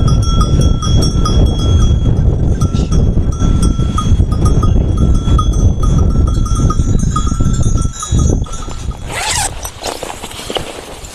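Sheep bells clinking and ringing on and off over heavy wind buffeting the microphone. The wind and bells drop away about eight seconds in, followed by a brief bright rustle.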